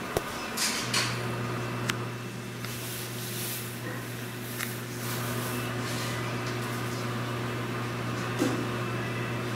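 Sanyo EM-1503T commercial microwave oven starting up: a few clicks, then about a second in a steady low hum sets in and holds as the oven runs, with an occasional light click.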